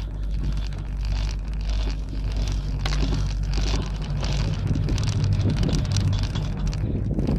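Wind buffeting the microphone during a ride on a Doppelmayr three-seat chairlift, with a low rumble that grows louder in the second half as the chair passes a lift tower and the haul rope runs over its sheaves.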